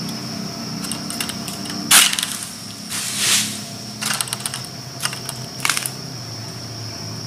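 Tiger888 egrek (a hooked sickle blade on a long pole) cutting through an oil palm frond stalk: a sharp crack about two seconds in, a rasping pull a second later, then a few smaller cracks.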